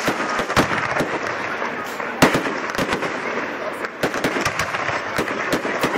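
Fireworks going off in quick succession: many sharp bangs, several a second, over a steady crackling haze, with the loudest bang a little over two seconds in.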